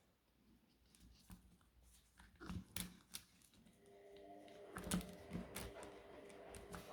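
Faint scattered clicks and knocks of small parts and screws being handled during reassembly of a power tool, with the loudest knock about five seconds in. A faint steady hum joins about halfway through.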